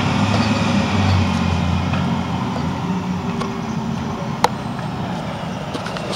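Steady city traffic noise, with a low vehicle rumble that fades after about two seconds, and one sharp click about four and a half seconds in.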